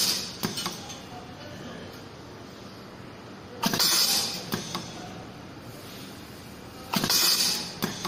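Pneumatic wire stripping, crimping and seal-inserting machine cycling: each cycle is a sharp clack followed by a short hiss of air, with small clicks after. Two full cycles about three and a half seconds apart, one a few seconds in and one near the end, with the tail of an earlier cycle at the very start.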